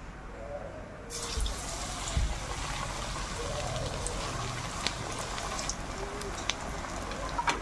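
Pork chop pieces going into hot oil in a stainless steel wok and frying. A steady sizzle with frequent crackles starts suddenly about a second in, as the meat meets the oil.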